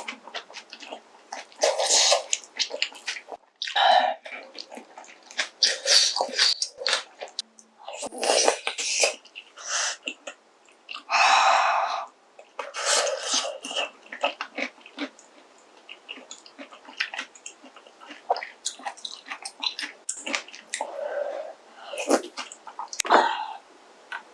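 Close-miked eating of kimchi stew with ramen noodles: wet chewing and slurping in irregular bursts with short gaps, and a longer slurp about eleven seconds in.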